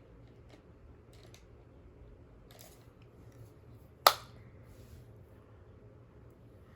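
Faint small handling sounds of makeup items, with one sharp click about four seconds in.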